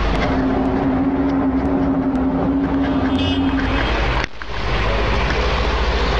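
Loud, steady rushing and rumbling noise with a held low drone for about three and a half seconds; the recording cuts about four seconds in and the rushing noise carries on.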